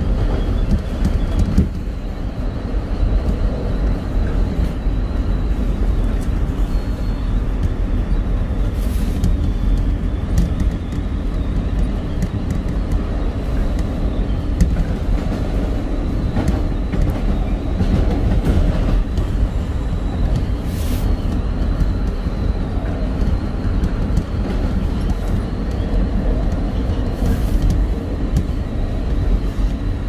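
Elevated rapid-transit train (SEPTA Market-Frankford Line El) running along the track, heard from inside the front car: a steady, loud rumble of wheels on the rails, with a few sharp clicks along the way.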